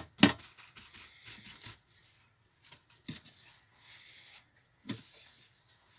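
Kitchen paper rustling and crinkling as raw fish fillets are patted dry on a wooden chopping board, with a few sharp knocks: two loud ones right at the start, then single ones about three and five seconds in.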